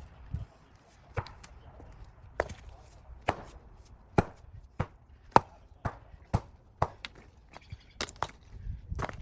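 Repeated sharp strikes of a hand digging tool into soil and gravel, about a dozen blows, uneven, closer together in the middle and loudest a little past halfway.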